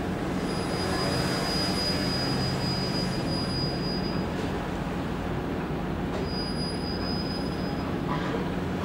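Steady low machinery hum with a thin, high-pitched whine over it that sounds for about three and a half seconds, then again briefly about six seconds in.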